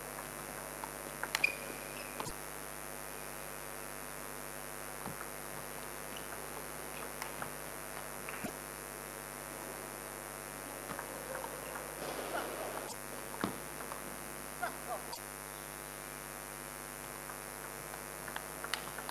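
Steady electrical hum under scattered sharp clicks of a table tennis ball being struck and bouncing. The clicks come in a denser run about two thirds of the way through.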